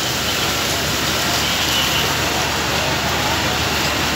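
Steady, loud rushing noise of a fire truck running close by at a fire scene, with faint voices of onlookers underneath.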